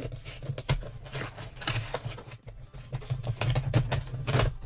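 Cardboard packaging of a collector box being handled and worked open by hand: a busy run of irregular scrapes, rustles and small clicks.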